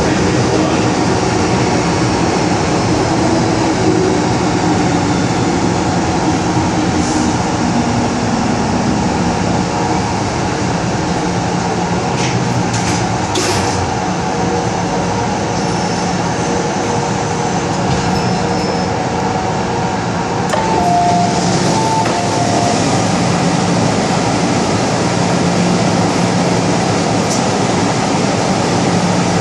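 MTR M-Train metro train running, with a steady loud rumble and hum. A few short, sharp high-pitched sounds come about halfway through.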